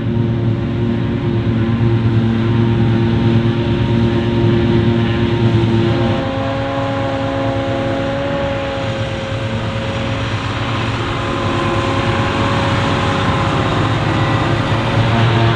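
Heavy diesel farm machinery running steadily under load, a droning engine note with a few steady tones. The pitch pattern changes about six seconds in.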